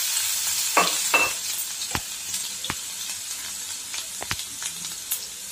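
Crushed garlic frying in hot oil in a kadai, a steady sizzle that dies down gradually, with a few sharp taps and clinks.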